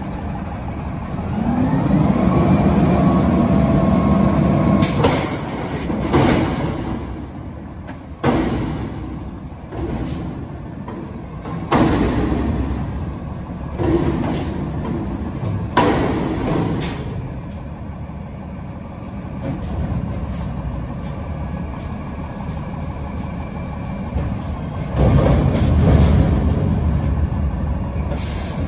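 Front-end loader garbage truck lifting and emptying a commercial bin: the engine revs up with a rising hydraulic whine as the forks raise the bin, then a series of loud metal bangs about every two seconds as the bin is knocked and shaken empty into the hopper. The engine revs loudly again near the end as the arms bring the bin back down.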